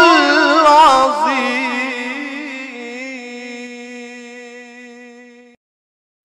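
A solo voice chanting a melismatic line that settles into a long held note with a slow wavering vibrato, then fades away about five and a half seconds in.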